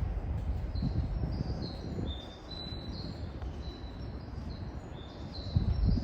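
Low rumble of a Shinkansen train, growing louder near the end as it comes closer, with wind noise and short high bird chirps repeating over it.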